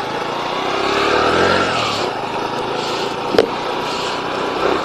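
Motor vehicle running on a road, its pitch rising and then falling over the first two seconds, with a single sharp click about three and a half seconds in.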